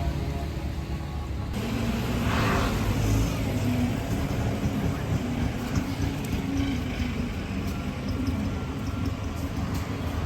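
Road traffic: a steady low rumble of engines, with one vehicle passing close by about two seconds in.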